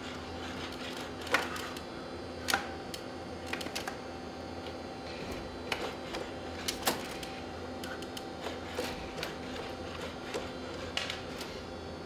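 Boston Dynamics SpotMini quadruped robot's electric motors humming and whirring steadily while it walks and works the door handle, with scattered sharp clicks and knocks from its feet and from the door, the loudest about a second and a half in.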